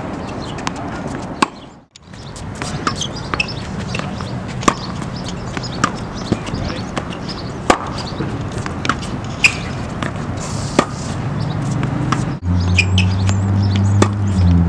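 A tennis ball struck by a racket and bouncing on a hard court: sharp pops a second or two apart, with birds chirping. The sound drops out briefly about two seconds in, and a steady low hum comes in near the end.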